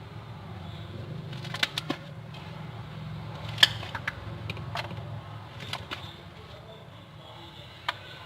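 Homemade fluffy shaving-cream slime being kneaded and squeezed by hand, giving off irregular sharp pops and clicks as trapped air bubbles burst, over a steady low hum.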